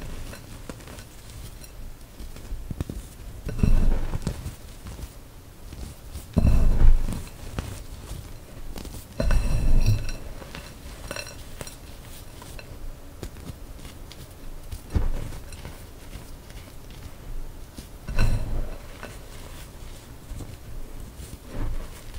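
Hands squeezing and crumbling handfuls of powdery gym chalk in a bowl: soft crunches with crackle, in about six separate squeezes a few seconds apart, with light crackling in between.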